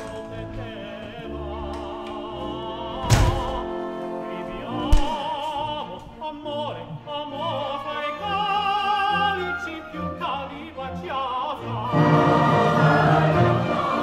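Operatic singing with vibrato over orchestral accompaniment, growing louder near the end. Two sharp thumps cut through it about three and five seconds in.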